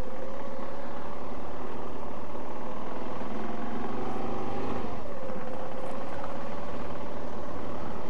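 Motorcycle engine running under way. Its pitch climbs slowly for the first few seconds, then drops quickly about halfway through and holds steady after.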